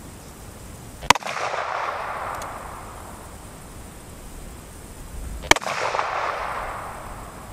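Two shots from a Ruger Super Blackhawk .44 Magnum revolver with a 10.5-inch barrel, firing 240-grain cast-bullet handloads, about four and a half seconds apart. Each is followed by an echo that rolls on for about two seconds.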